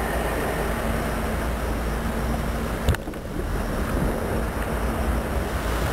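Motorboat under way: a steady rush of wind and water over a low engine drone with a faint steady hum. A single sharp click about three seconds in.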